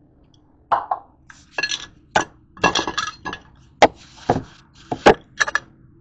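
Kitchen dishes and utensils clinking and clattering: a quick run of about ten sharp clinks and knocks, some ringing briefly.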